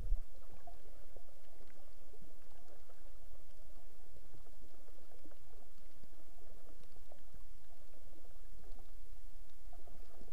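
Muffled underwater ambience picked up by a camera under water: a steady low rumble and hiss with many faint crackling clicks, and a low bump right at the start.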